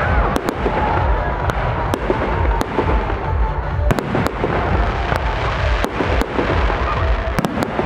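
Large-calibre aerial firework shells bursting in a rapid, unbroken string of loud bangs and crackles over a constant low rumble from the salvos.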